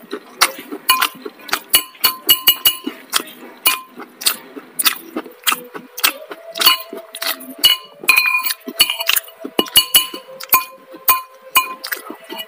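Metal spoon clinking and scraping against a ceramic bowl as rice is scooped up: many sharp, irregular clinks, each with a short ring.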